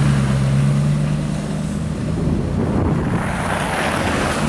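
Street traffic in slush: a pickup truck passes close by with a steady low engine hum that fades after about two seconds, then a broad rushing noise of tyres on the slushy road.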